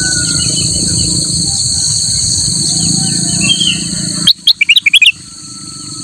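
Kutilang emas (a bulbul) singing a quick, loud burst of about eight short notes about four seconds in, with a few faint chirps just before. Under it runs a steady high insect drone.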